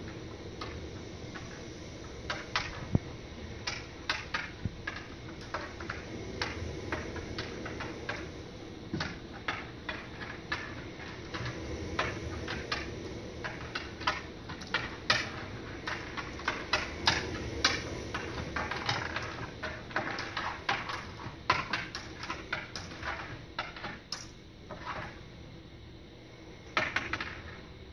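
Irregular clicking and clattering of small hard objects handled on a tabletop, busiest in the middle, over a steady low hum.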